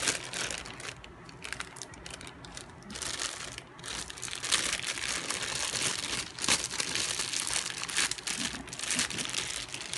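Clear plastic bag crinkling as hands handle and unwrap a small motor unit inside it: a dense run of crackles that gets louder about four seconds in.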